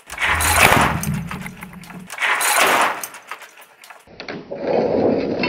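Blade of a homemade wooden guillotine sliding down its rails and slamming into the base as it chops a CD, heard twice. From about four seconds in, a steady rushing noise.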